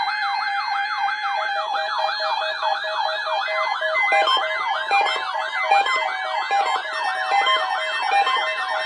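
Several electronic yelp sirens layered over held synthesizer notes: fast, repeating up-and-down pitch sweeps, roughly four a second. More sirens join over the first two seconds, making the sound denser.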